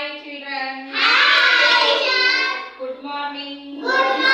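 Group of young children singing together in unison, a sung classroom rhyme; the voices swell much louder about a second in and again near the end after a brief dip.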